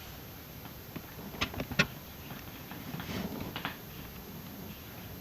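A utensil knocking and scraping against a container while stirring slime mixture: a few sharp clicks about a second and a half in, then a softer scraping stir around three seconds in.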